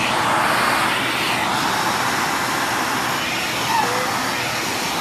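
Dyson Cinetic Big Ball vacuum cleaner running steadily, sucking air through a pet grooming tool that is being drawn through a husky's thick undercoat.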